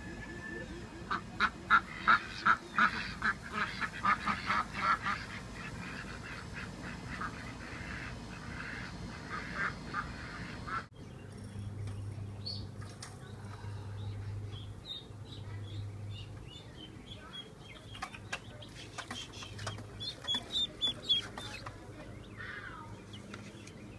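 Ducklings peeping, many short high calls a second, loudest in the first few seconds. After a sudden break about eleven seconds in, a faint low hum comes and goes under scattered quieter peeps.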